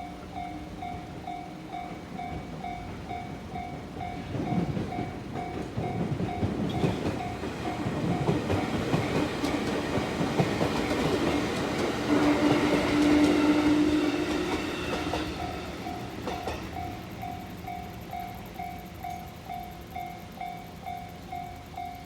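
Japanese railroad crossing warning bell ringing at a steady beat of a little over two strokes a second while a train passes through the crossing. The train's running noise builds from about a quarter of the way in, is loudest a little past the middle, where it drowns the bell, then fades, leaving the bell ringing alone near the end.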